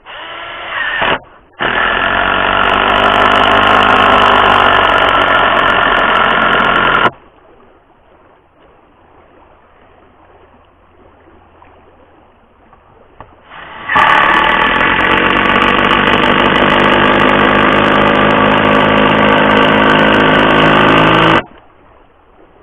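Red cordless power driver running under load as it sinks long TimberLOK structural screws through OSB into a log. After a short burst at the start, it runs steadily at an even pitch twice, for about five and about seven and a half seconds, with a pause between.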